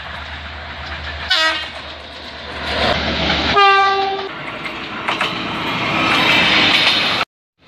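Train horn blown twice, a short blast about a second in and a longer one near the middle, over the steady rumble and clatter of passing trains. The sound cuts off suddenly near the end.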